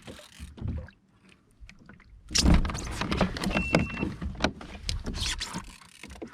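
Water splashing and clattering knocks against a fishing kayak, starting suddenly about two seconds in, as a hooked wahoo is brought alongside. A short high electronic beep sounds once midway.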